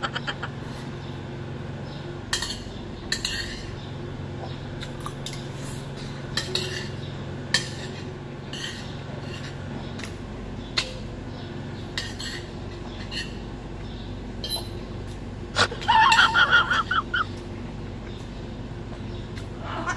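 Metal spoon and fork clinking and scraping against a ceramic plate in quick eating, scattered clicks every second or two, with a louder flurry about three-quarters of the way in. A low steady hum runs underneath.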